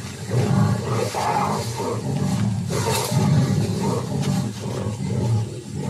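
Jaguars growling during mating: a run of loud, deep growls following one after another with hardly a pause.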